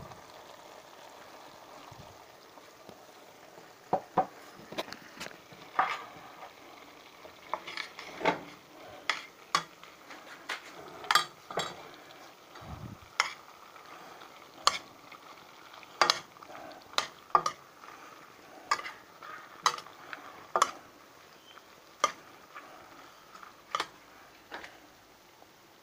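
Metal spoon stirring shredded chicken and vegetables in a stainless steel pot, clinking sharply against the pot about once a second from about four seconds in, over a steady low sizzle from the pot.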